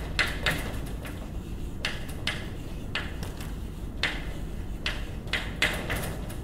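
Chalk writing on a blackboard: short, irregular tapping and scratching strokes, a few per second, over a steady low room hum.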